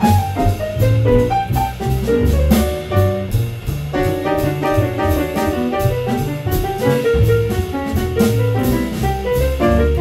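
Jazz trio playing instrumentally: piano running quick melodic lines over plucked upright bass and a drum kit, with steady cymbal strikes.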